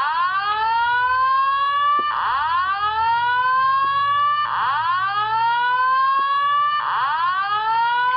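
Simplex Slow Whoop fire-alarm evacuation tone sounding through a Simplex TrueAlert speaker/strobe: four slow rising whoops back to back, each a little over two seconds long.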